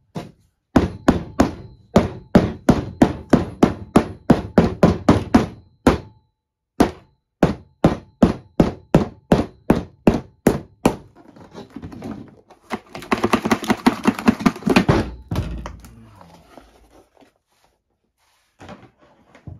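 Rubber mallet tapping rapidly on the bottom of an upturned plastic mold, about three blows a second in two runs with a short pause between, to release a cured epoxy and white oak charcuterie board. A couple of seconds of rough scraping noise follow as it comes free.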